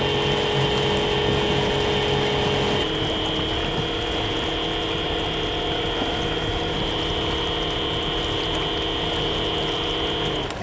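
Homemade brushless electric outboard motor running under way with a steady high whine and gear noise, driving its propeller through a worn Carver outboard lower-unit gearbox. The tone shifts slightly about three seconds in.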